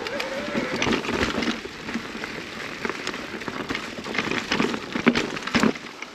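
Mountain bike rolling over a rough, stony trail: tyres crunching on loose gravel, with many irregular clicks and knocks.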